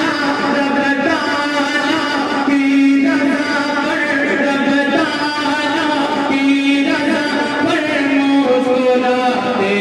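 A man singing a manqabat, a devotional poem in praise of Imam Husain, into a microphone, drawing out long held notes.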